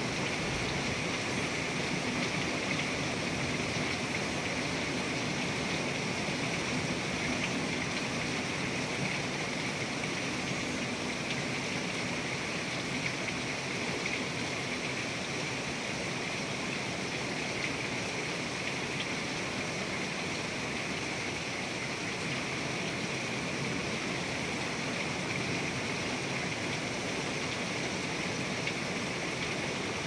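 Heavy thunderstorm rain pouring down steadily, a dense, even hiss with no breaks.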